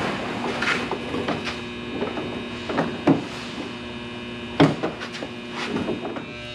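A tow hook being tried through the front bumper's grille opening: several sharp knocks and clicks of the hook against the plastic grille, the loudest about two-thirds of the way in, over a steady electrical hum.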